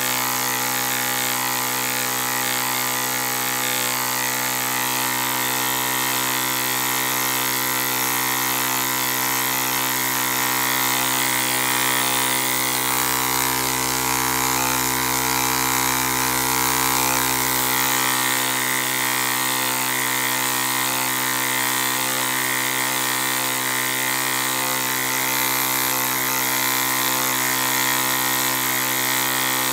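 Small 14 cc single-cylinder live steam engine with a metal flywheel running unloaded at high speed on about 40 psi of steam: a loud, steady, high-speed buzzing whir that holds one pitch throughout.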